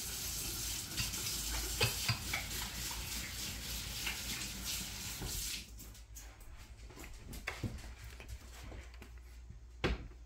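Water running from a kitchen tap, a steady hiss that stops about five and a half seconds in, with a few light clicks and knocks.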